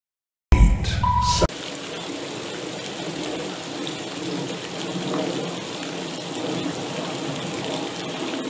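A loud rumbling burst for about a second, then a steady rushing noise like running water.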